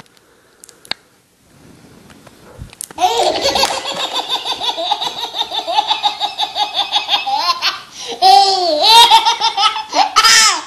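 Baby belly-laughing: after a quiet start, a long unbroken run of rapid, high-pitched 'ha-ha-ha' laughter begins about three seconds in, followed by several shorter bursts of laughter.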